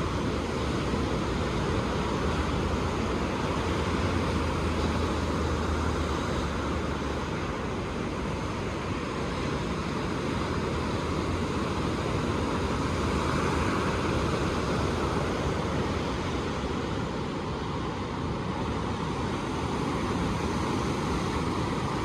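Ocean surf washing on the shore: a continuous rush of breaking waves that swells and eases slowly over several seconds.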